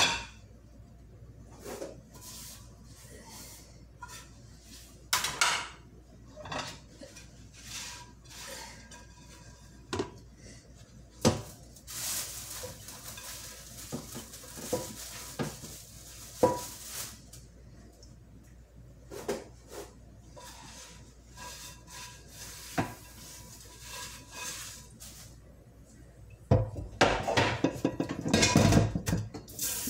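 Kitchen clatter of pots, pans and utensils being handled: scattered knocks and clinks, with a hiss for several seconds midway and a dense run of clattering near the end.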